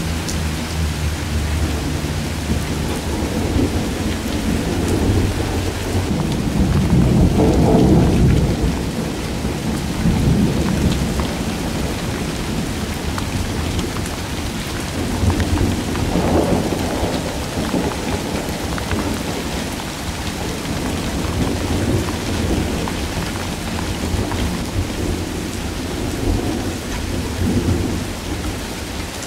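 Steady rain pattering onto puddles and wet ground, with thunder rumbling beneath it. The rumble swells loudest about seven to nine seconds in and again around sixteen seconds.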